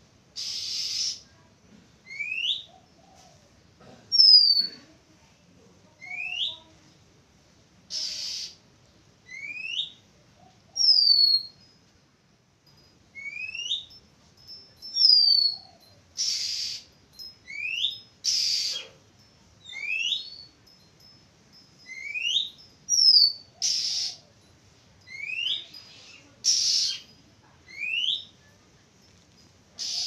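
Oriental magpie-robin singing. It gives a clear whistle that rises in pitch about every two seconds, with falling whistled notes between them. Short harsh rasping notes break in about eight times and are the loudest sounds.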